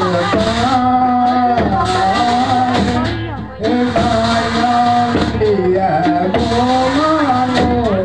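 Live folk music: a held, wavering sung melody over hand-played two-headed barrel drums. The sound dips briefly about three and a half seconds in.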